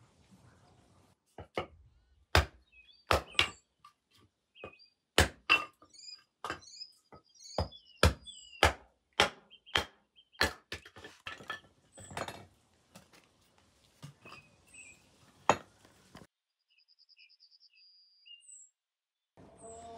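A run of irregular sharp knocks and clinks, some of them loud, which stop a few seconds before the end. Small birds chirp throughout.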